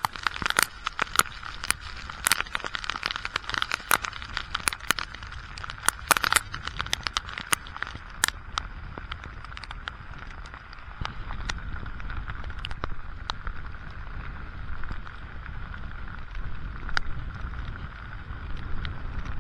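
Heavy squall rain, with big drops hitting the microphone and boat as sharp cracking clicks over a steady hiss of rain, and wind rumbling low. The hits are dense at first and thin out after about eight seconds, while the low wind noise grows.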